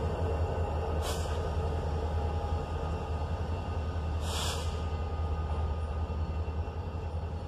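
Two diesel freight locomotives rumbling steadily as they move off along the track, with two short hisses of air, a brief one about a second in and a longer one about four seconds in.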